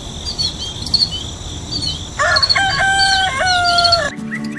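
Small birds chirping repeatedly over a steady low background, with a rooster crowing for about two seconds from a little before the middle. Near the end the farm sounds cut off and music begins.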